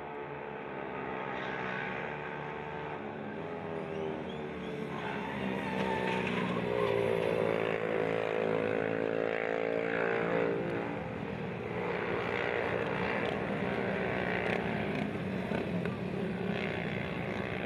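Racing motorcycle engines running at high revs as several bikes go by, their pitch sweeping up and down with each pass.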